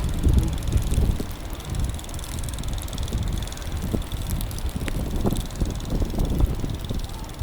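Wind buffeting the microphone: a low, uneven rumble that surges and drops.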